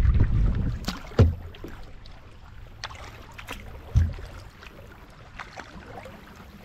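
A kayak being paddled: water splashing and lapping against the hull, with two sharp low knocks, about a second in and about four seconds in.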